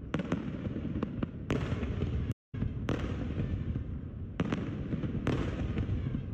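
Aerial fireworks shells bursting: sharp bangs about every half second to second over a continuous low rumble of further bursts. The sound cuts out completely for a moment a little past two seconds in.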